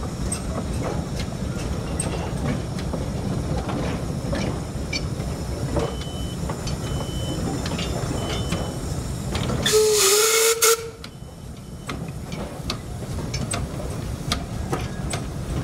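Narrow-gauge steam locomotive and its train running past, with a steady rumble and clatter of wheels on the rails. About two-thirds of the way through comes one short, loud blast of the steam whistle, about a second long, with a hiss of steam.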